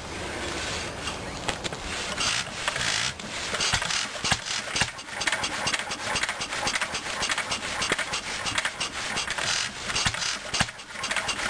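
A McCormick-Deering Type M 1½ hp single-cylinder stationary gas engine, converted to hit-and-miss governing, is spun over by hand on its spoked flywheel and starts. It then runs with its firing strokes coming at uneven intervals as the governor latches it out between power strokes.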